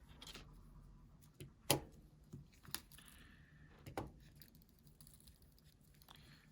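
Faint, sparse clicks and taps of small tools and phone parts being handled during a smartphone repair, with sharper clicks about two, three and four seconds in.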